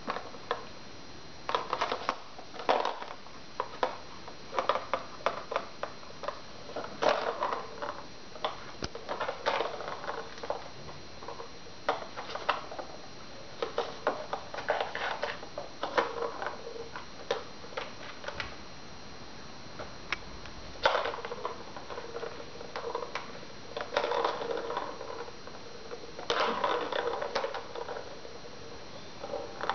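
Plastic ball toy clicking and rattling as kittens bat the balls around its circular track: irregular clicks and short rolling rattles, with a few brief pauses.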